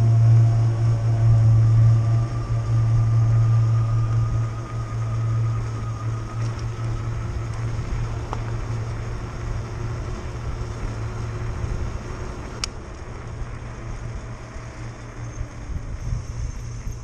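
Electric bicycle riding along: a steady low hum with a faint motor whine that rises slightly a few seconds in, over road and wind noise, growing gradually quieter toward the end. There is one sharp click about two-thirds of the way through.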